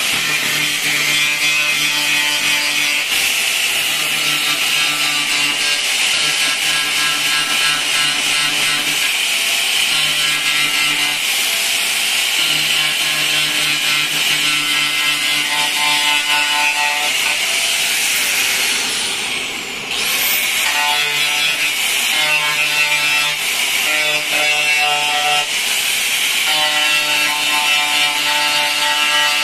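Electric angle grinder grinding on car-body sheet metal, a steady high whine over a harsh grinding hiss. A little after halfway it briefly winds down, its pitch sliding down, then it is started again and quickly rises back to speed.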